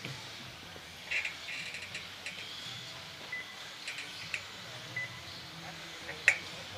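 Electric RC buggies and short-course trucks running on an indoor track: a faint motor whine with scattered clicks and knocks of the cars on the track, one sharper knock near the end, and a few short high beeps.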